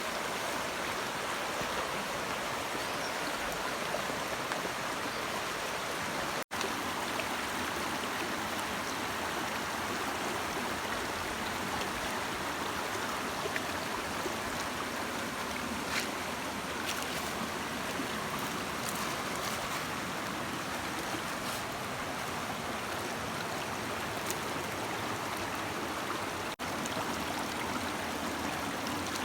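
A brook running over stones: a steady rushing and babbling of water, with small splashes ticking through it. The sound cuts out for an instant twice.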